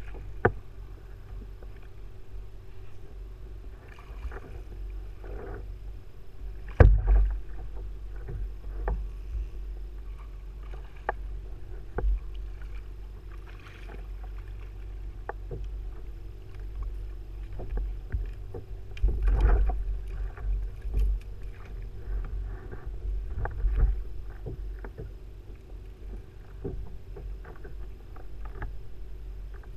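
Knocks, bumps and clicks of a fisherman's gear against a plastic kayak, over a constant low rumble. A sharp knock comes about seven seconds in and a cluster of louder bumps about two-thirds of the way through.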